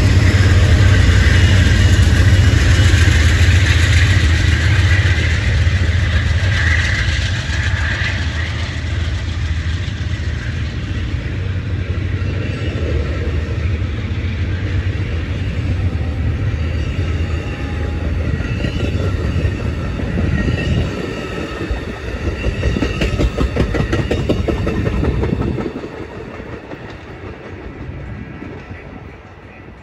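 Amtrak diesel passenger train departing: at first the deep rumble of its trailing diesel locomotive, then the bi-level passenger cars rolling past with wheels clattering over the rail joints. The sound falls away sharply near the end as the train pulls off.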